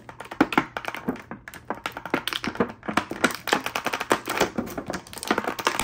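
Thin clear plastic blister tray from an action-figure package crackling and clicking as hands flex it and pull the figure out: a rapid, irregular string of sharp plastic clicks.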